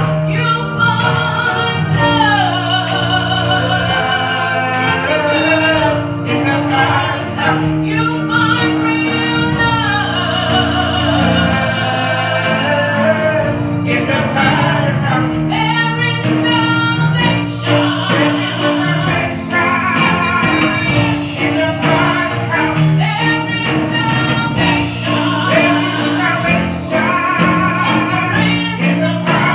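Two women singing a gospel praise song into microphones over steady instrumental accompaniment, their voices holding long wavering notes.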